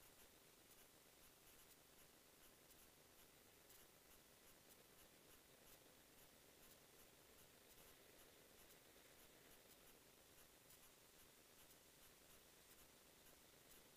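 Near silence: a faint, even hiss with light, irregular scratchy ticks.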